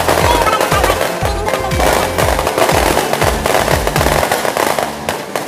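Fireworks going off overhead in rapid crackling pops and bangs, over loud music with a deep, repeating bass that stops about four seconds in.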